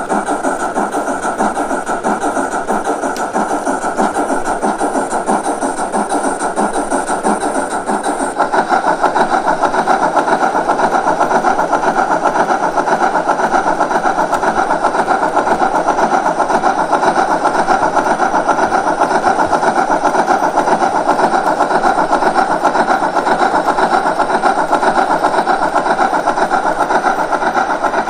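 Steam-locomotive sound from the ESU LokSound 5 XL sound decoder in a Gauge 1 model of the DR class 52, played through the model's loudspeaker as it runs under load with a coach. The chuffing is a fast, even beat and grows a little louder about eight seconds in.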